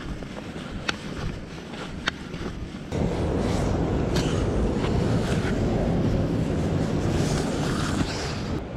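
Wind buffeting the microphone over the sound of surf on a sea-cliff rock ledge. For the first three seconds it is quieter, with a few sharp clicks; then the wind rush jumps suddenly much louder and stays steady.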